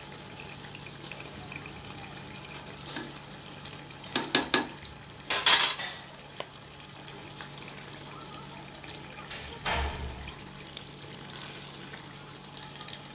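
Fish pieces frying in oily masala in an earthenware clay pot, a steady sizzle. A metal spoon knocks and scrapes against the pot: a quick run of knocks about four seconds in, a louder scrape just after, and another near ten seconds.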